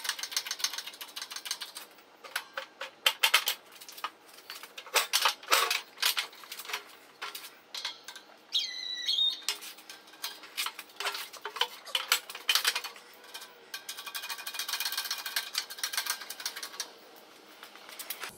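Metal clicks, knocks and rattles of a steel pallet jack being shifted and set up in a hydraulic shop press, with a short high squeak about halfway through.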